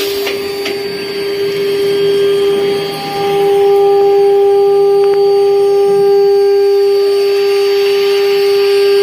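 CNC router spindles running with a steady high whine while their end mills cut 3 mm aluminium profile, with a hiss from the cutting and coolant mist that grows louder near the end.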